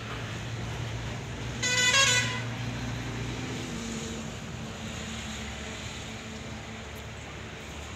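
A vehicle horn sounds once, a single short toot about two seconds in, over a steady low rumble.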